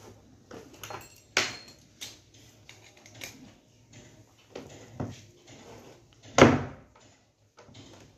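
Clicks and knocks of an LED TV's plastic back cover being handled and pried at with a screwdriver, with two louder knocks, one about a second and a half in and one about six and a half seconds in.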